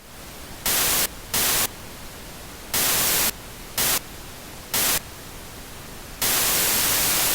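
Hiss of TV-style white-noise static that jumps to a louder level in five short bursts, then stays loud for the last second or so.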